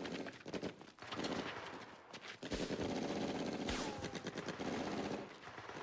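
Battle gunfire: rapid automatic and rifle fire in dense cracks, with a short falling whine of a passing or ricocheting bullet about halfway through.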